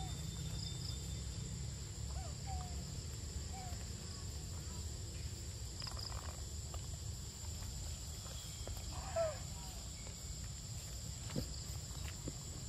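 Steady high-pitched insect drone over a low rumble, with a few short squeaky calls, the loudest about nine seconds in.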